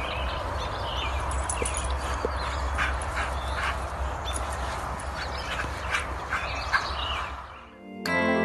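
A dog giving short yips and barks over a steady low rumble of wind on the microphone. Guitar music comes in suddenly near the end.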